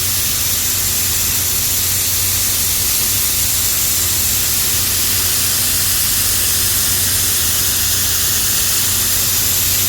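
Grain-handling equipment running while shelled corn is conveyed into a bin: a steady rushing hiss over a constant low hum.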